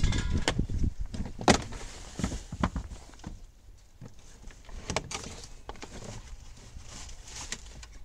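Scattered knocks, clunks and rustling of someone moving about inside a minivan's cabin, busiest in the first couple of seconds with one sharp knock about a second and a half in, then fewer and quieter knocks.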